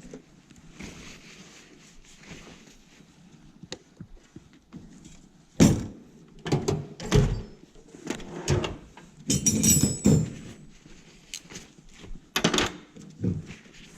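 Snap-on hand tools being put away: a run of sharp metal knocks and clinks, some with a bright ringing, starting about five seconds in and ending shortly before the end, after a few seconds of faint handling.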